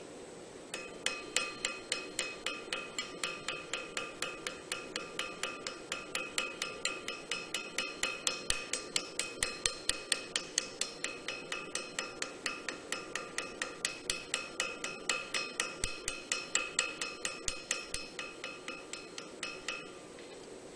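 Hand hammer forging a red-hot steel knife blank on an anvil: a steady run of blows, about four a second, each with a bright metallic ring. The hammering starts about a second in and stops shortly before the end.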